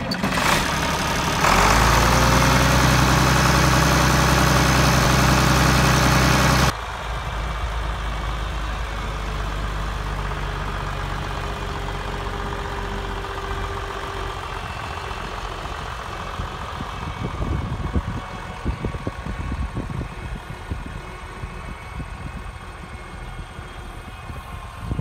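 International 1066 tractor's turbocharged six-cylinder diesel running, heard close to the engine: it speeds up about a second and a half in, rising briefly in pitch, then holds a loud, steady note. It then drops suddenly to a quieter, steady running sound that turns uneven near the end as the tractor moves off.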